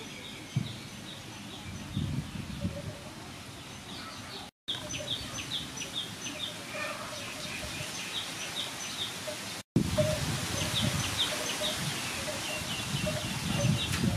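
Small birds chirping over and over, short high chirps, against a steady outdoor background hiss and low rumble. A lower short call repeats a few times a second in the second half. The sound cuts out completely twice for a moment.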